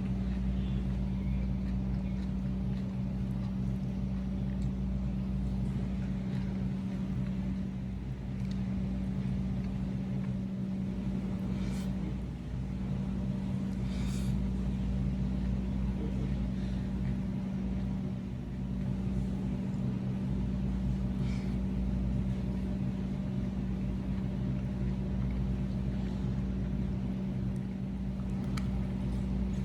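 A steady mechanical hum with a low rumble, and a few faint light clicks.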